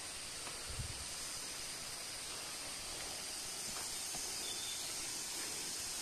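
Steady high-pitched hiss of forest background sound, with one soft low thump about a second in.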